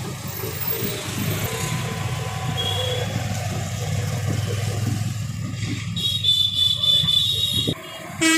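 Steady low engine and road rumble of traffic, heard from an open three-wheeler riding past buses. Near the end a high steady whine sounds for about a second and a half.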